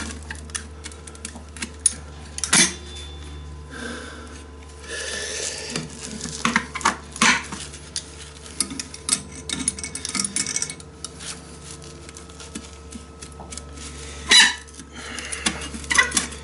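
Pieces of metal clinking and clattering as they are handled and worked, in irregular knocks with a louder clank about two and a half seconds in and another near the end, over a steady low hum.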